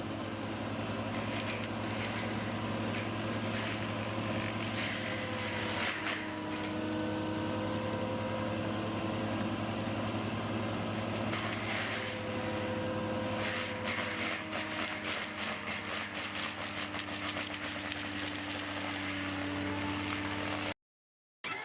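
Link-Belt 130 excavator running a Denis Cimaf DAF-125D mulching head: steady diesel engine and hydraulic hum whose pitch rises and dips a few times, with several brief noisy bursts as the head grinds into brush and trees. The sound cuts off abruptly near the end.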